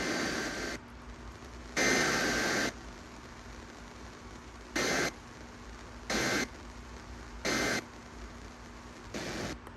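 Emergency Alert System SAME digital data bursts received over FM radio, harsh screeching data noise over static hiss: two bursts of about a second each, then three short end-of-message bursts about a second and a half apart, and another burst beginning near the end.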